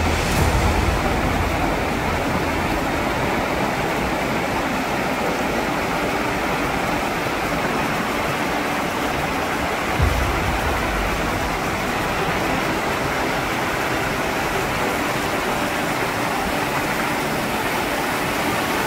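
Waterfall: a steady, even rush of falling water, with a brief low thump about halfway through.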